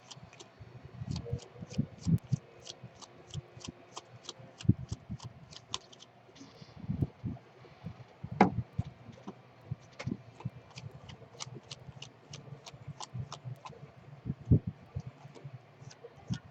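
Trading cards and packs being handled on a table: soft thumps and rustling, loudest at two knocks about eight and fourteen seconds in. A steady high ticking runs underneath, about three ticks a second.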